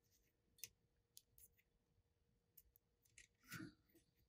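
Near silence, with a few faint, scattered small clicks and rubs from fingers pressing and stretching a snake skin around a fishing rod blank.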